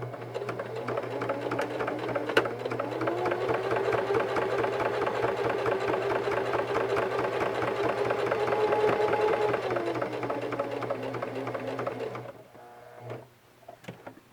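Singer Heavy Duty 4432 sewing machine, freshly cleaned and fitted with a new feed dog, sewing a straight stitch through eight layers of cotton: the motor tone rises about two seconds in and holds under a fast needle clatter, then winds down and stops about twelve seconds in, followed by a few faint clicks. It feeds the thick layers nice and smooth.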